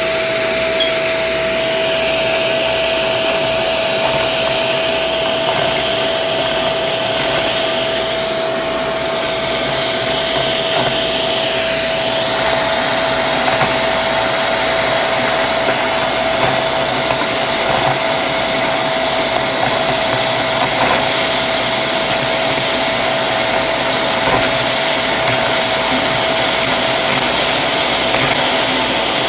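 Shark vacuum cleaner running steadily with its crevice tool, with a constant whine, sucking up a pile of sequins and paper confetti that crunch and rattle up the tool.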